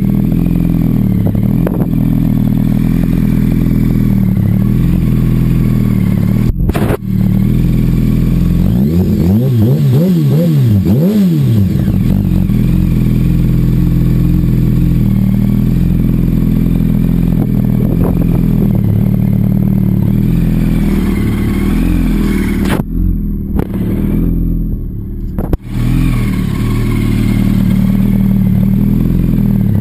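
2007 Yamaha R1's inline-four engine running at a steady idle through M4 aftermarket mufflers. Its note rises and falls briefly about ten seconds in.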